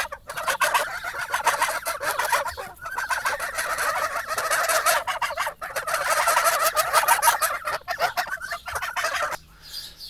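A flock of young grey domestic geese calling together, a dense chatter of overlapping rapid honks and trills. It breaks off suddenly near the end.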